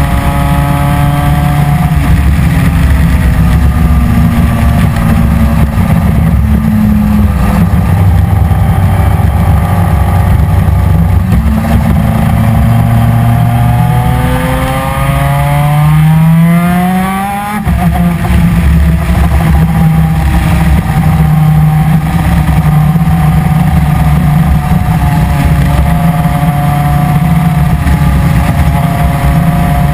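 Superkart's 250 cc two-stroke twin-cylinder PVP engine running hard. Its pitch falls over the first several seconds, then climbs steadily and breaks off sharply about 17 seconds in, with a brief dip and a drop in pitch. It then runs high again with small rises and falls.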